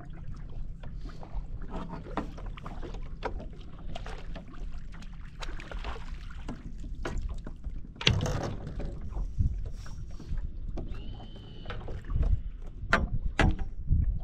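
Wind and water lapping on a fishing boat, with scattered knocks and clatter from gear being handled on the deck. The loudest knocks come about eight seconds in, as a fish is swung aboard in a landing net, and again near the end. A brief high tone sounds around eleven seconds in.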